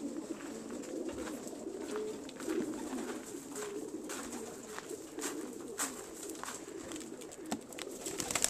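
A loft full of racing homing pigeons cooing together in a continuous, overlapping low chorus, with scattered sharp taps and clicks.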